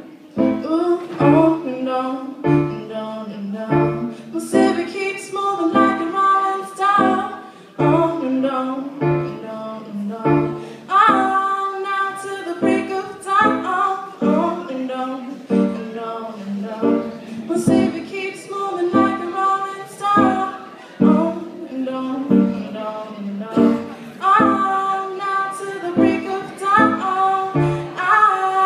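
A woman singing a song while accompanying herself on an electronic keyboard.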